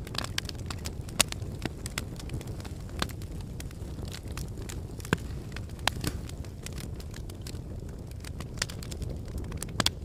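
Wood fire in a fire pit crackling, with sharp pops at irregular intervals over a steady low rumble. The loudest pops come about a second in, around the middle, and just before the end.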